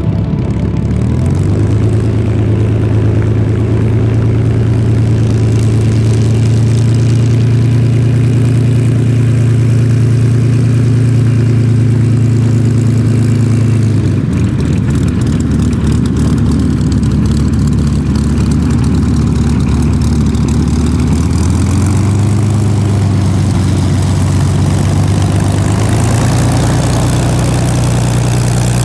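Rolls-Royce Merlin V12 engine of a Supermarine Spitfire running with its propeller turning. The engine note climbs in the first second and holds steady, then drops and wavers at about 14 seconds, and steps back up again at about 22 seconds.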